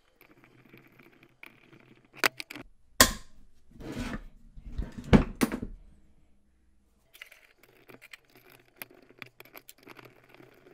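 Metal parts and hand tools handled on a workbench while a flange bearing housing is pressed onto a shaft and set against a metal plate: several sharp clicks and knocks with dull thuds in the first half, then faint scratching and ticking.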